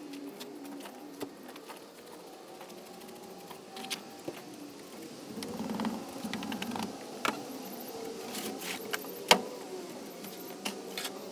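Shovel scraping through damp peat-and-perlite soil mix and knocking against a plastic mixing tub, with several sharp clicks and one louder knock about nine seconds in. A motor hums in the background.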